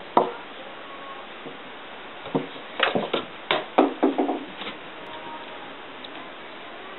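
A small ball knocking on wooden stair treads. One sharp knock comes at the start, then a run of quick bounces about halfway through that come closer and closer together as the ball settles.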